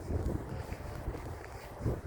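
Wind buffeting the microphone in uneven gusts, a low rumbling noise.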